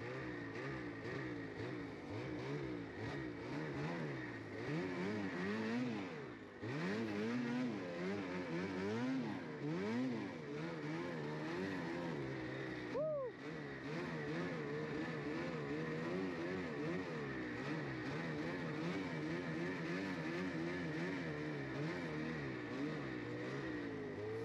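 Snowmobile engine revving up and down again and again as the sled works through deep powder, with one quick sharp rev about halfway through; for the last ten seconds it holds a steadier note.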